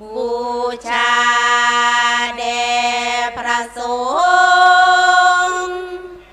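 Female chanting of Thai sarabhanya (Buddhist devotional verse) over microphones, unaccompanied. It is one long drawn-out note that steps up in pitch about four seconds in and fades out near the end.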